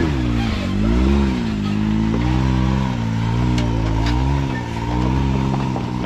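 Can-Am Maverick X3 side-by-side's turbocharged three-cylinder engine revving up and down in repeated throttle blips, about one rise and fall every second or so, as it crawls up a rock ledge under load.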